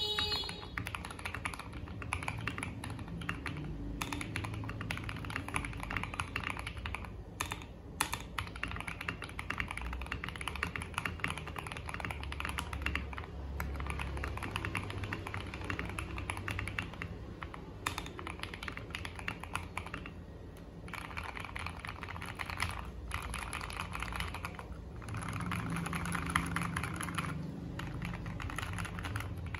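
Mechanical keyboard fitted with FSA-profile PBT double-shot keycaps being typed on steadily, a dense run of keystroke clacks with a few short pauses. The sound is the warm, deep type the reviewer attributes to PBT keycaps.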